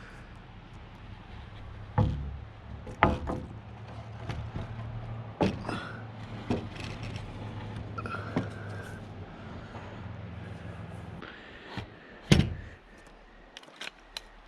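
A motor running with a steady low hum that stops about eleven seconds in, with several sharp knocks and clanks; the loudest knock comes near the end.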